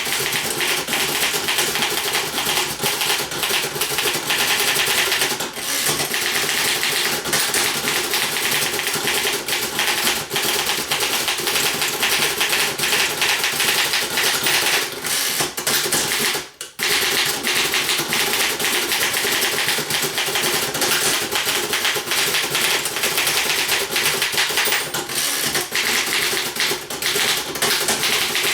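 1940 Remington Model 4P typewriter being typed on: a fast, continuous clatter of keys and typebars striking, broken by one short pause about sixteen seconds in.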